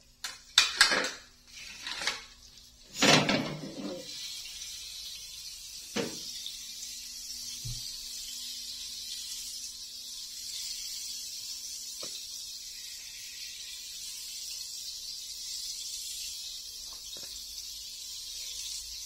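Metal tongs and pan clank a few times, then butter sizzles steadily as it melts in a hot frying pan.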